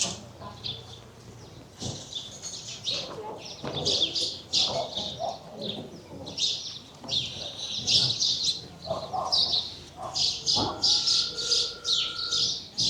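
Small songbirds chirping and twittering over and over, with faint voices of people in the background.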